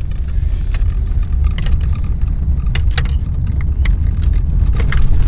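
Car in motion heard from inside the cabin: a steady low rumble of engine and tyres on the road, with light clicks and rattles at irregular moments.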